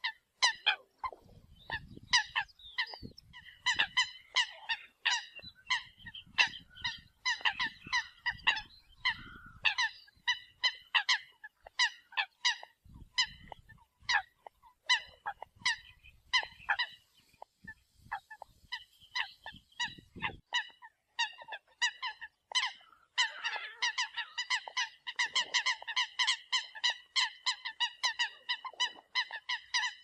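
Eurasian coots calling: a rapid series of short, sharp, honking calls, several a second. They thin out in the middle and become a dense run of overlapping calls in the last quarter.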